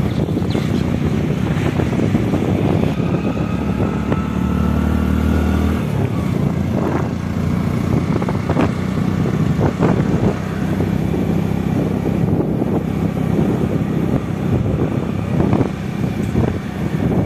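Motorcycle engine running steadily while riding at road speed, with wind and road noise. A deeper drone swells for a few seconds around the third to sixth second, and a few short sharp knocks come through a little after halfway.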